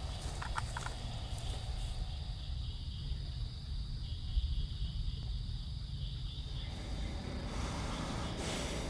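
Outdoor ambience: a steady low rumble with a faint, steady high-pitched insect drone, and a few light footsteps in dry grass in the first second.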